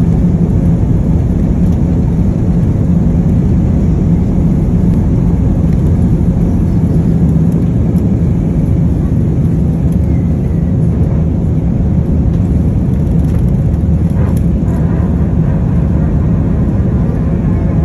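Airliner cabin noise in flight: a loud, steady low rumble of jet engines and airflow, with a constant hum underneath.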